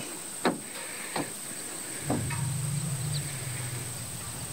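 Steady high-pitched drone of insects calling. A low steady hum comes in about two seconds in, with a couple of faint clicks before it.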